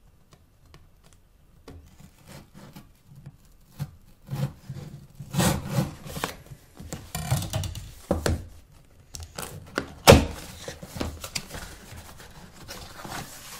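A cardboard phone box being opened from the side: irregular rubbing and scraping of cardboard sliding against cardboard, with one sharp knock about ten seconds in.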